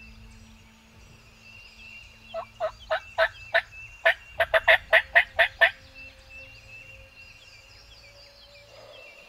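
Wild turkey calling: a run of about five sharp notes, a brief gap, then about nine quicker notes, over roughly three seconds.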